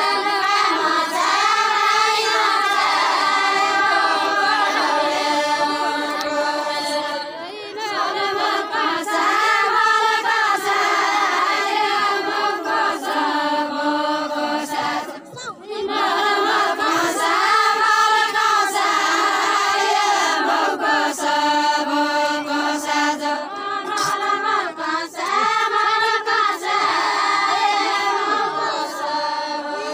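Group of women singing a Deuda folk song unaccompanied, in long drawn-out phrases broken by short pauses.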